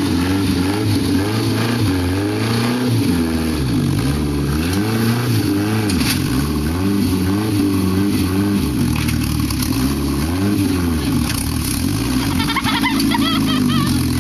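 Modified Isuzu Trooper's engine revving up and falling back again and again under heavy load as the off-road rig crawls up over a wrecked car. A brief, higher wavering sound joins it near the end.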